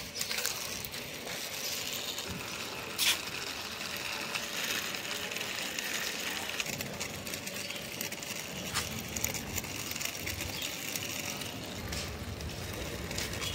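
Light clicks and rustling as a small toy auto rickshaw and its packaging are handled, over a steady faint hiss, with one sharper click about three seconds in.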